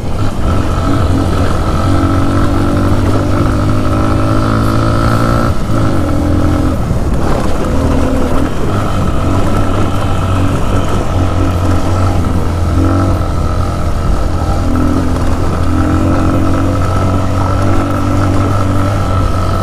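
Kawasaki KLX150's air-cooled single-cylinder four-stroke engine running while the bike is ridden on a gravel road, its pitch rising and falling with the throttle.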